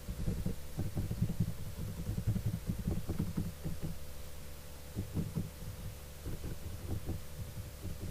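Computer keyboard typing heard through a video-call microphone: rapid, irregular low thuds, several a second, with a faint steady hum underneath.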